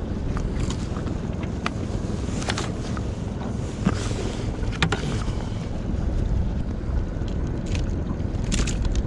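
Wind buffeting the microphone over a steady low rumble of water around a small boat, with a few sharp clicks scattered through, the loudest about five seconds in.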